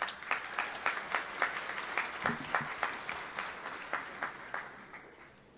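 Audience applauding, with several sharp individual claps standing out over the general clapping. The applause thins and fades away toward the end.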